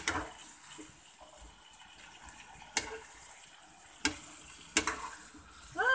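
Beef strips, carrots and onion stir-frying in a frying pan with a steady sizzle, and a metal ladle knocking against the pan four times as it stirs. Near the end comes a short pitched call that rises and then falls.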